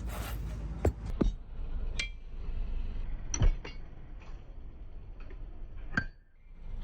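Metal parts and tools clinking and knocking against each other during hydraulic jack repair work: about six sharp, separate taps with a short metallic ring, over a low background rumble that drops away near the end.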